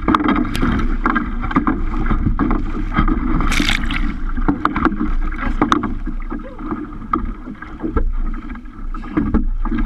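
Choppy lake water slapping and splashing against a kayak's bow in irregular short hits, over a steady low rumble of wind on the microphone. A bigger splash comes about three and a half seconds in.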